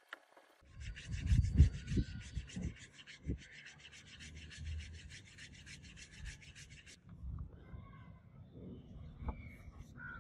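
Fast back-and-forth hand rubbing along a pen's grip, a quick scratchy rhythm with a few dull knocks, which stops abruptly about seven seconds in. Faint handling sounds follow.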